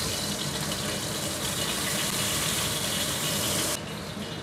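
Hot oil sizzling steadily in a stainless-steel wok as a whole fried red fish is lifted out with a spatula. The hiss drops away abruptly near the end.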